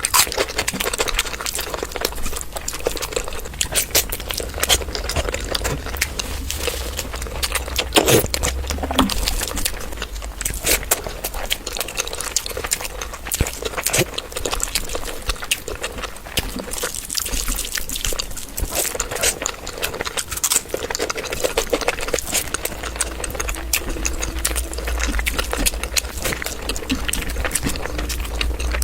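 Close-miked eating sounds: wet chewing, smacking and clicking of saucy curry food, with a steady patter of small irregular clicks.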